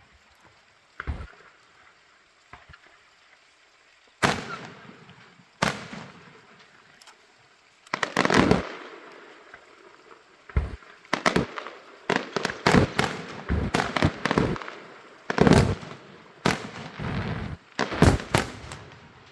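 Aerial fireworks shells bursting, a series of sharp bangs each trailing off in a fading rumble. A few bangs in the first half, then coming thick and fast from about ten seconds in until near the end.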